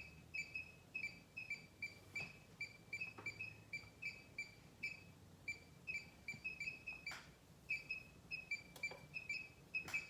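A short high-pitched chirp repeating in quick pairs, a few times a second, with a few faint clicks.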